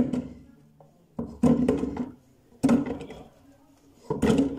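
Small peeled red onions dropped by hand into a clear plastic jar: three hollow knocks about a second and a half apart, each ringing briefly at the same pitch.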